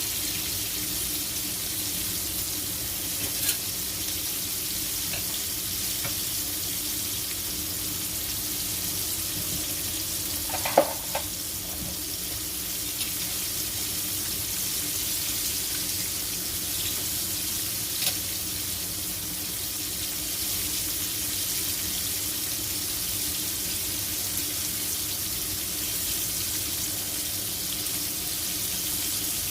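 Food sizzling steadily in a frying pan, with a few light utensil clicks and one louder clink about eleven seconds in.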